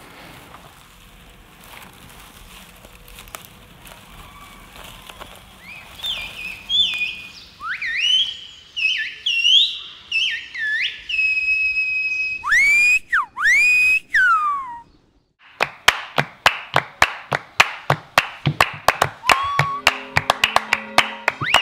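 Finger whistling: a run of loud whistles that swoop up and down in pitch, starting about six seconds in and breaking off near fifteen seconds. Then a fast, even run of sharp clicks begins, with a long whistle held over it near the end. The first seconds hold only a faint hiss.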